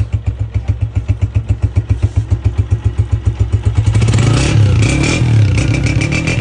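Honda 125's single-cylinder four-stroke engine idling through a chrome aftermarket Senkie silencer, with an even exhaust beat of about eight a second. About four seconds in it is revved, and the note turns louder and more continuous.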